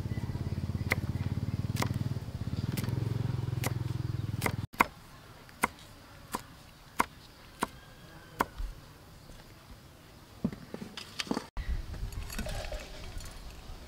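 Kitchen knife chopping red chillies on a thick wooden chopping block: single sharp knocks, a little over one a second. For the first few seconds a low droning hum runs under the chops. Near the end the blade scrapes the chopped chilli off onto a plate.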